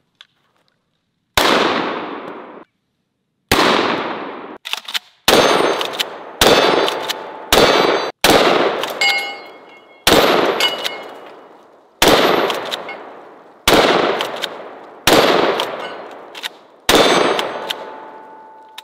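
About ten 12-gauge shotgun shots with 3.5-inch magnum shells, fired a second or two apart, each with a sharp crack and a long echoing tail. Steel plate targets ring after several of the hits, with a last long ring near the end.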